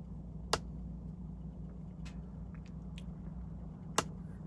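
Small handling sounds of fly tying at a vise: two sharp clicks, about half a second in and near the end, with a few faint ticks between, over a steady low hum.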